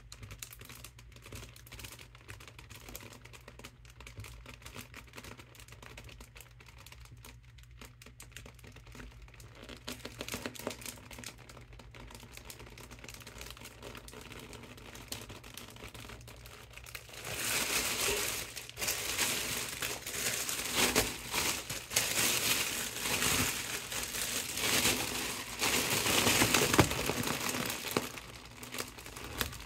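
Mylar foil balloon crinkling and crackling as a hand presses on it to squeeze the air out. The crackles are faint at first, then turn much louder and denser a little over halfway through.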